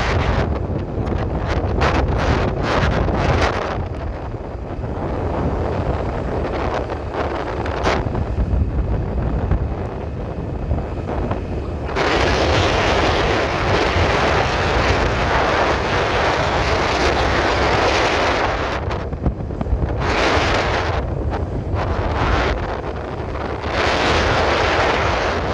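Wind buffeting a phone microphone on a moving scooter, with a constant low rumble underneath. A broad rushing noise swells and fades several times, loudest in the middle stretch.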